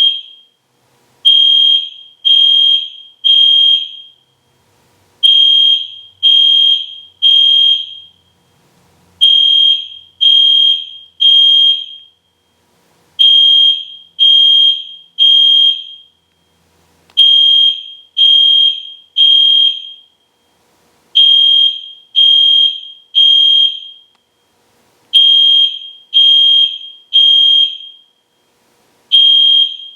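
EST Genesis fire alarm horn sounding the temporal-three evacuation signal: three loud, high-pitched beeps, a pause, then three more, the pattern repeating about every four seconds.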